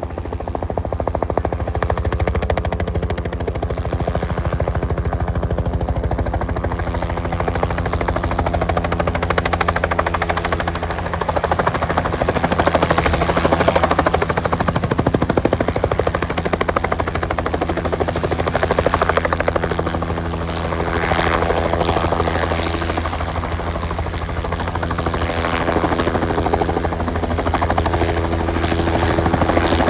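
Bell 505 Jet Ranger X helicopter running close by, a steady rapid rotor chop over the engine, swelling a little in loudness midway and again near the end.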